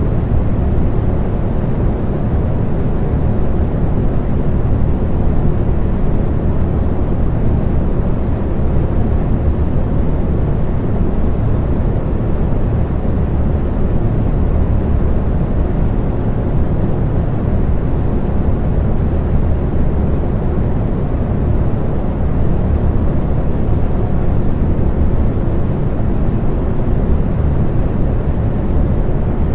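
Electric fan running steadily: a constant low whooshing hum of air and motor, with most of the sound in the low range and little hiss.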